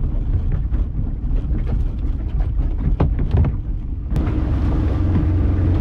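Small fishing boat's motor running low under wind on the microphone, with a few knocks, then picking up about four seconds in to a louder, steadier rumble as the boat gets under way.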